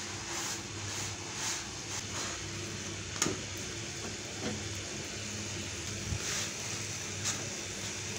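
Pita bread lightly frying on a hot flat griddle: a faint, steady sizzle over a low hum, with a single light tap about three seconds in.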